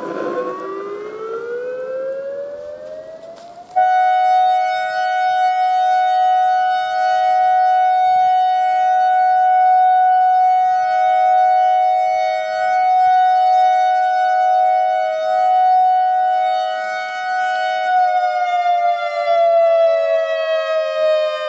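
ACA Alertronic AR-1600 electronic outdoor warning siren sounding. A rising tone jumps suddenly louder about four seconds in to a steady two-note tone, which holds for about fourteen seconds and then starts to fall in pitch near the end.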